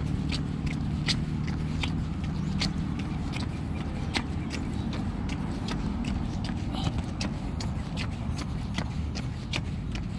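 Footsteps on a brick-paved walkway, short clicks about two a second, over a steady low rumble.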